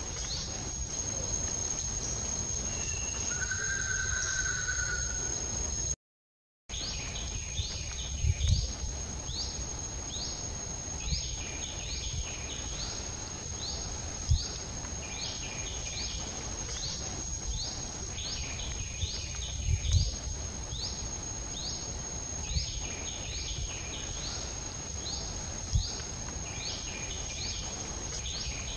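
Outdoor insect chorus: a steady high-pitched drone with rapid, repeated short chirps over it, and a brief whistle a few seconds in. A few low thumps come through now and then, and the sound cuts out for a moment about six seconds in.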